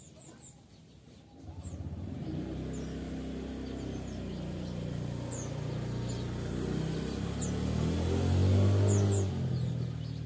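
A motor vehicle's engine approaching and passing, building from about a second and a half in, loudest near the end, then dropping away. Short high chirps from white-eyes (Zosterops) sound over it.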